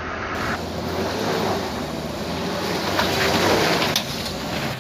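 Light truck and bus engines running on a steep, rough dirt incline, under a steady rush of wind noise on the microphone. The sound changes abruptly about half a second in and again near the end, where one clip cuts to the next.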